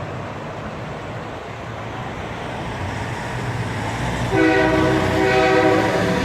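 Semi-truck engine rumbling as it draws near, then a loud multi-tone air horn blast about four seconds in, held for nearly two seconds.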